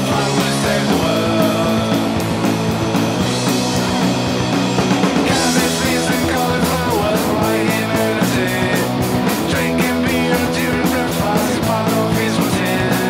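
Punk rock song played by a rock band at full volume. From about five seconds in, the drums hit a fast, steady beat.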